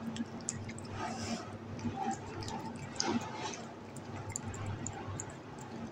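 Kitten chewing and licking soft, juicy mango chunks from fingers: irregular small wet smacks and clicks, over a steady low hum.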